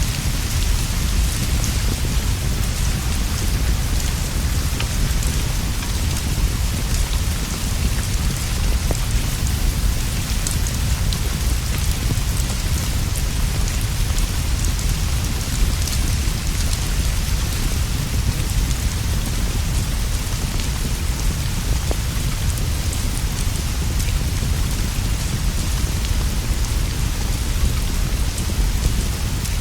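Steady rain falling on leaves and a straw roof, an even hiss over a deep continuous low rumble, with scattered faint pops from a crackling wood fire.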